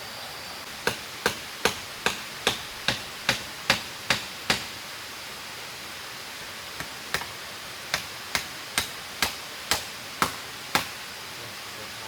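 Repeated chopping strikes, about two and a half a second: about ten blows, a pause of roughly two seconds, then about ten more, all over a steady background hiss.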